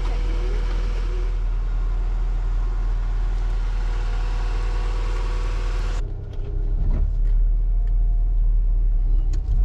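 Car engine idling steadily with a low rumble. About six seconds in, after a cut, car engine and road rumble are heard from inside the cabin while driving, with a few light knocks.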